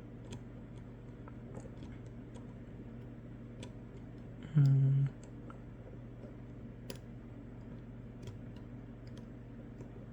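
Faint, scattered clicks and ticks of a disc-detainer pick turning the discs inside an Anchor Lås padlock while the discs are set. About halfway through comes the loudest sound, a brief steady hum, like a voice's short "mm".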